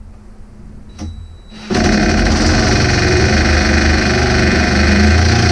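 Impact wrench hammering steadily for about four seconds, starting a little under two seconds in, snugging a sway bar mounting bolt ahead of torquing.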